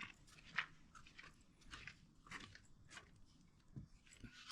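Faint, scattered crunches and rustles, a short irregular crackle roughly every half second or so, with the loudest near the end.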